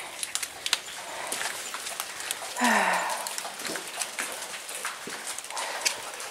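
Footsteps picking their way down a steep hiking trail: irregular scuffs and clicks of boots on ground and rock. A short vocal sound, like a grunt or exclamation, comes about three seconds in.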